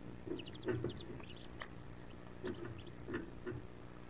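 Wood duck ducklings peeping inside the nest box: a scatter of short, high peeps several times a second. Soft low bumps and rustles come from the huddle shifting on the box floor.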